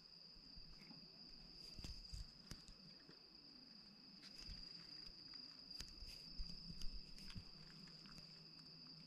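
Faint, steady high trill of crickets in the night, with a few soft clicks and rustles scattered through it.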